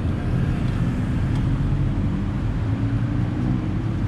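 Traffic noise led by a motor engine running steadily, a constant low hum with no sharp events.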